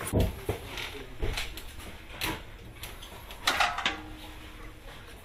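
Scattered knocks and clatter, with a low rumble of handling noise near the start and a louder clatter about three and a half seconds in.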